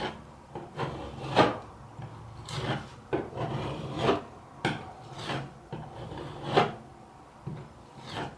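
Spatula spreading and scraping fiberglass Bondo body filler onto a wall: a series of short, irregular scraping strokes, one or two a second.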